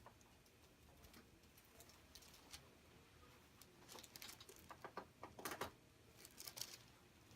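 Near silence, then a cluster of faint soft clicks and rustles in the second half from hands working over the neck and shoulder during soft-tissue massage.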